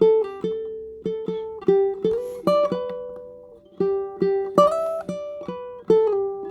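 Tenor ukulele fingerpicked: single plucked notes and light chords in an unhurried melody, each note ringing and fading, with a short pause just past the middle.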